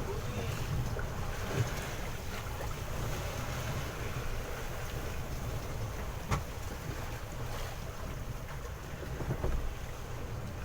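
Wind buffeting the microphone over water sloshing around a small boat at sea, with a few sharp knocks, the loudest about six seconds in.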